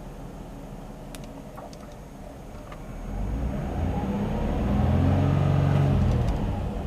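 Nissan Z33 Fairlady Z's 3.5-litre V6 idling, then revved in neutral: the revs climb about three seconds in, hold briefly, and drop back near the end. A few faint clicks come before the rev.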